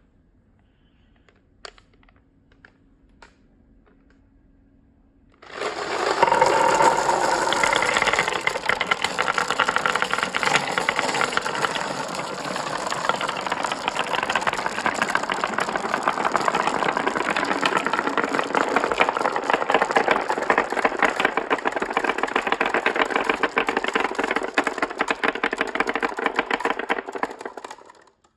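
A few scattered clicks, then, about five seconds in, a crowd of marbles suddenly starts rolling down a marble run track: a loud, dense, continuous clattering and rattling of many marbles at once that lasts about twenty seconds, then fades out near the end.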